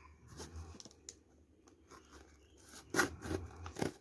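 A parcel's packaging being cut and torn open with a folding knife. Faint scraping at first, then a cluster of sharp crackles and crinkles about three seconds in.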